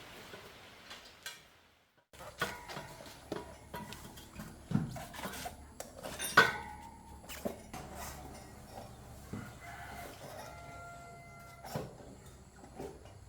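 A rooster crowing in the background, among scattered light knocks and clinks.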